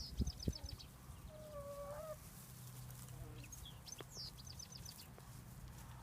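Chickens on pasture: a chicken gives one drawn-out call about a second and a half in. A small wild bird sings a quick trill of repeated high notes twice. There are a few low bumps at the very start.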